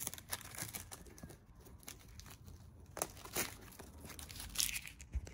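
A piece of translucent plastic film being peeled off a cured epoxy joint on a webbing strap and crumpled in the hand, crinkling and tearing in a run of short crackles. The loudest bursts come about three seconds in and again a second and a half later.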